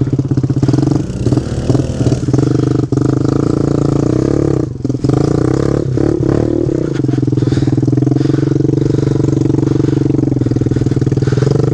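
Small pit bike engine running right under the handlebars, the throttle working up and down over rough ground with some knocks and clatter for the first several seconds, then holding a steady speed.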